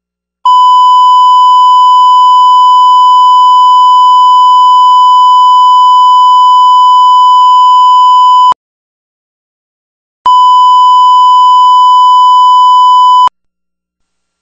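Broadcast line-up test tone sent with colour bars: one loud, steady, unwavering beep lasting about eight seconds. It breaks off for under two seconds, then returns for about three seconds.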